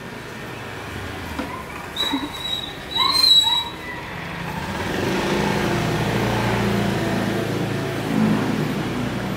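Corded electric pet clippers buzzing steadily while shaving a small dog's underside, getting louder about halfway through. Two short high-pitched sounds cut in briefly a couple of seconds in.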